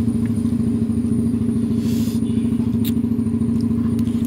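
Small engine running at a steady idle with a fast, even pulse and no change in speed, with a few light clicks over it.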